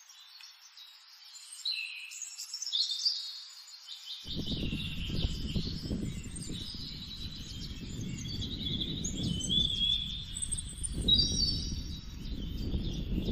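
Several wild birds chirping and trilling: short high whistles and warbles overlapping one another. About four seconds in, a low rumbling noise starts underneath and continues.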